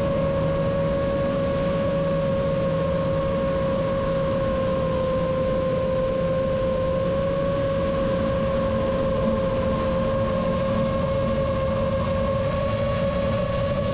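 A seven-inch FPV quadcopter's T-Motor F90 brushless motors and propellers holding steady cruise throttle: an even, unchanging hum over a constant rushing noise.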